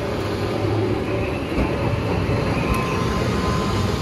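A train running: a steady, even rumble with a faint steady hum over it.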